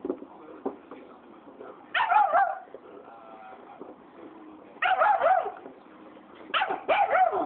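Black wolf hybrid, angry at another dog, giving three short cries of wavering pitch a few seconds apart.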